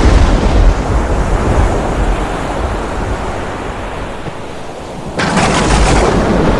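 Storm at sea sound effect: a low thunder rumble fades over the first couple of seconds under a steady rushing noise of wind and sea. About five seconds in, a sudden loud crash breaks in for under a second.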